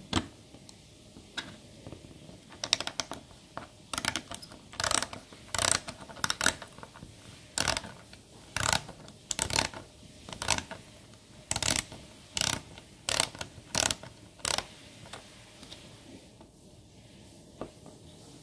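A 3D-printed plastic ratchet on an Allen key clicking as it is worked back and forth: a short run of pawl clicks on each return stroke, repeated about once or twice a second. There is one sharp click at the start, and the ratcheting stops about three-quarters of the way through.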